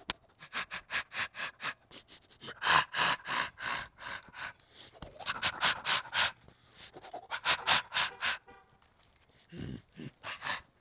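A man's gorilla impression: quick rhythmic panting hoots, building into several bouts of loud open-mouthed ape cries.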